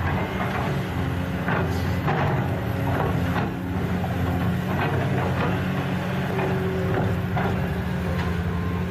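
Plastic toy excavator clicking and scraping in sand, many short knocks in an irregular rhythm, over a steady low engine-like hum.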